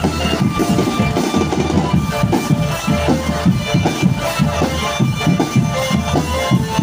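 Live drum band music: fast, busy drumming with bass drum and snares, under a held melody line.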